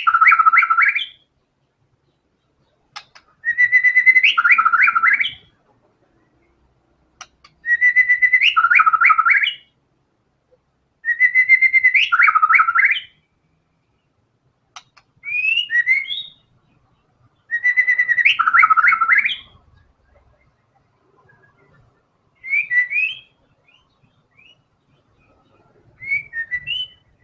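White-rumped shama (murai batu) singing loudly, repeating the same phrase about every three and a half seconds: a held whistled note that breaks into a quick run of falling notes and ends with an upward flick. Shorter, broken phrases come in the later part.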